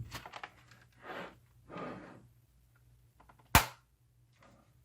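Plastic keyboard parts being handled and fitted back together: a few light clicks and two soft scraping sounds, then one sharp plastic snap about three and a half seconds in.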